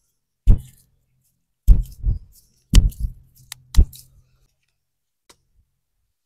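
A handful of dull thumps at uneven intervals, the sound of hands slapping and working on a forearm and hand during a massage, with a single sharp click about three and a half seconds in.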